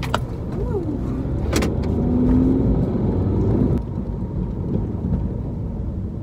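Car engine and road noise heard inside the cabin while driving, a steady low rumble. The engine note rises and grows louder for a couple of seconds about two seconds in, then falls away, with two sharp clicks in the first two seconds.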